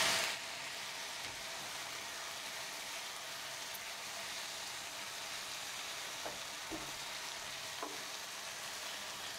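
Chicken and vegetables sizzling in a non-stick frying pan as they are stir-fried with a silicone spatula: a steady frying hiss with a few light spatula scrapes.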